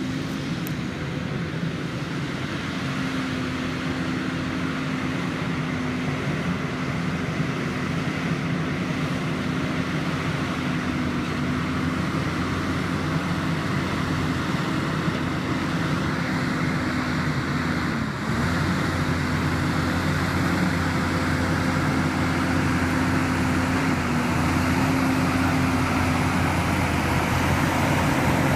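Versatile 260 tractor's diesel engine running steadily under load while ploughing, with a brief dip in engine speed about two-thirds of the way through, after which it runs a little louder.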